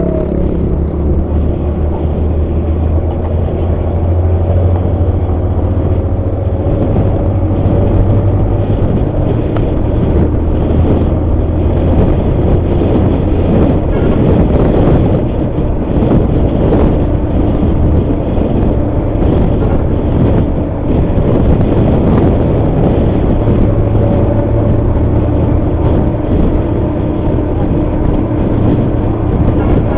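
ALS intercity bus's diesel engine running through a loud aftermarket exhaust (the "knalpot legend Bogor"): a steady, deep drone with small shifts in pitch as the engine speed changes.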